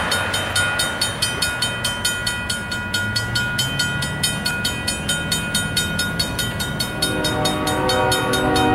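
Railroad grade-crossing bell ringing steadily, about three strikes a second, as the crossing signals warn of an approaching train. About seven seconds in, the Union Pacific locomotive's multi-chime air horn starts sounding, a loud chord of several notes that keeps going.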